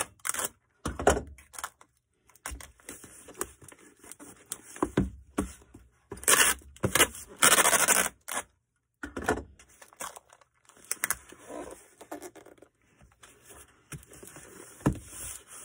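Irregular packing sounds of a cardboard box being packed by hand: scrapes, rustles and thunks, with a couple of longer, louder scraping or tearing sounds about six to eight seconds in.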